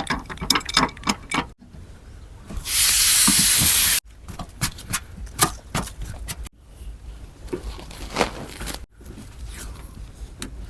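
Scattered clicks and knocks of handling work, broken by a loud, steady hiss lasting about a second and a half, about three seconds in.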